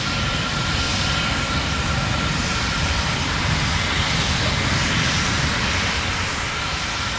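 Terran 1 rocket's first-stage engines, nine methane-oxygen Aeon 1s, in a steady, heavy rumbling roar during powered ascent.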